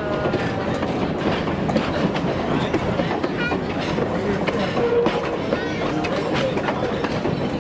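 Open-air passenger cars rolling past close by, their wheels clicking over the rail joints, with a brief faint squeal about five seconds in. Passengers' voices run underneath.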